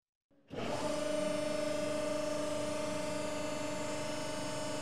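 300-ton hydraulic press's pump running, a steady hum and whine that comes in after half a second of silence as the ram works down on a stack of liquid-nitrogen-frozen paper.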